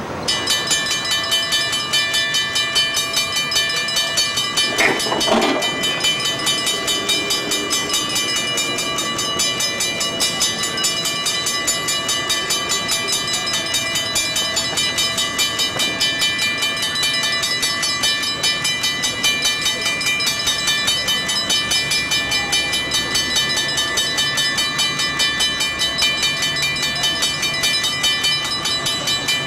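Grade-crossing warning bell ringing at a steady quick rate, starting abruptly, as the crossing activates for an approaching train. About five seconds in a brief louder sound rises over it.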